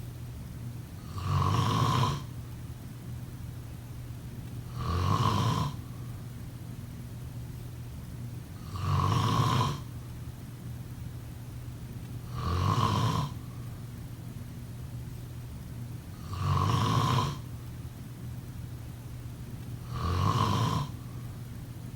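A sleeping person snoring in a slow, even rhythm: six snores about four seconds apart, each lasting about a second, over a steady low hum.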